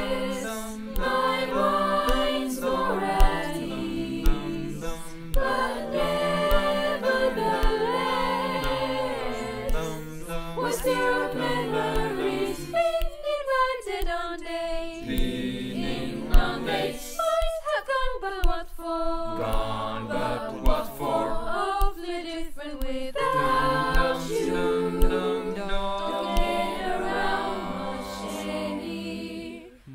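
Mixed choir of young women's and men's voices singing a cappella in several parts, a virtual choir of separately recorded voices mixed together. The sound dips away just at the end.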